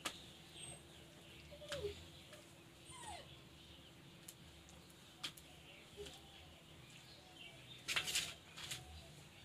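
Hands mixing cut vegetables in a stainless steel bowl: scattered light clicks against the metal, with a quick run of clatter and scraping about eight seconds in when the mix is tossed hard. A few faint, short falling calls, likely from an animal, sound in between.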